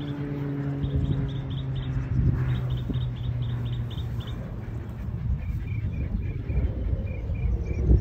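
Outdoor field ambience: short high chirps in quick repeated series, a higher series first and a lower one from about halfway. Under them are a low steady hum that fades out about halfway and a continuous low rumble.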